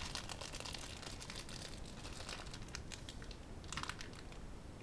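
Plastic packet of a LEGO set crinkling and crackling in irregular small bursts as it is pulled open by hand, with a busier stretch of crackles a little before the end.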